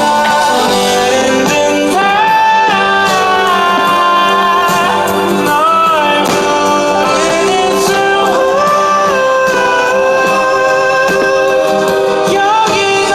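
A song with a sung melody over instrumental accompaniment, steady and loud throughout.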